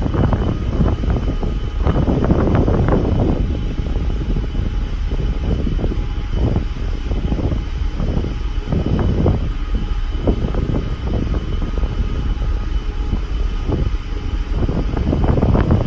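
Wind rushing over the microphone in uneven gusts on the deck of a moving cruise ship, with a faint steady hum from the ship's machinery or fans underneath.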